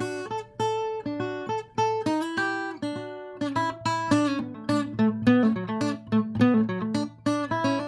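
Instrumental background music: plucked guitar notes ringing over a held low bass note.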